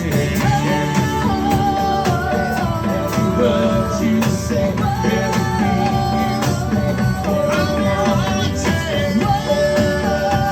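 Music: a held, wavering melody line, sung or played, over steady percussion.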